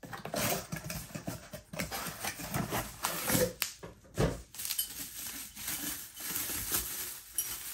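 Packaging being handled: a cardboard mug box opened and a ceramic tiki mug in plastic bubble wrap pulled out and turned in the hands, with irregular rustling and crackles of the wrap throughout.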